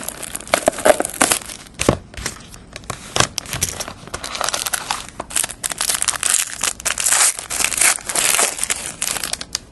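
Clear plastic shrink wrap being torn off a sealed trading-card box and crumpled, a dense, continuous crinkling crackle.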